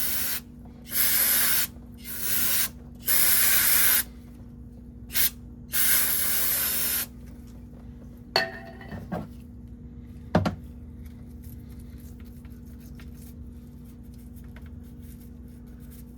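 SuperTech aerosol brake cleaner sprayed in about six short hissing bursts, one very brief, over the first seven seconds, followed by a few sharp knocks.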